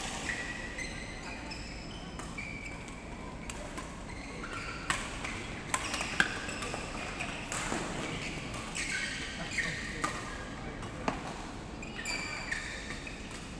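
Badminton rackets striking shuttlecocks in several rallies, giving a string of sharp irregular cracks, with short high squeaks of shoes on synthetic court mats between the hits.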